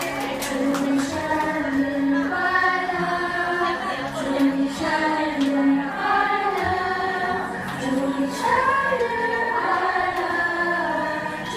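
A crowd of fans, mostly women's voices, singing a song together in unison, with a few sharp clicks over the singing.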